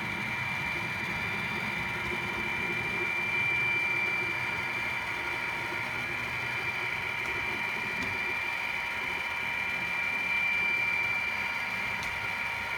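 Model railway locomotive running through the yard: a steady high-pitched whine with a low rumble beneath.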